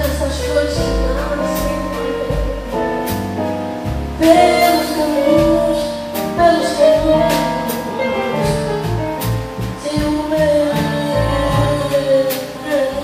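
Female singer's voice in a bossa nova song, backed by a jazz trio of piano, acoustic double bass and drums.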